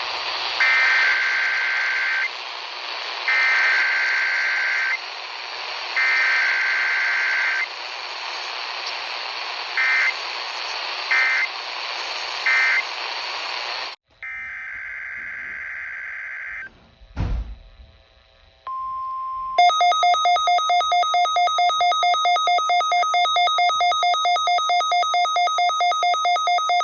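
NOAA Weather Radio SAME alert data bursts, screeching two-tone digital codes heard over radio hiss: three long header bursts, then three short end-of-message bursts. After a further burst and a thump comes a short 1050 Hz tone, then an electronic alarm beeping about three times a second.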